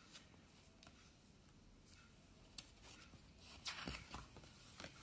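Near silence with faint paper ticks. About three and a half seconds in, a brief rustle and scrape of a stiff card page of a children's board book being turned.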